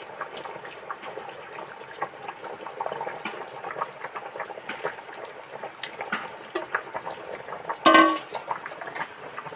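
Thick curry gravy bubbling at a boil in a pan on a gas stove, a steady simmering noise with many small pops. A brief louder knock about eight seconds in.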